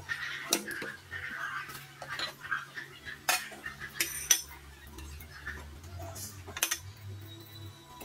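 A stainless mesh strainer knocking and clinking against a plate and the sink as drained instant noodles are shaken out of it: a few sharp metal taps scattered through, the strongest a few seconds in.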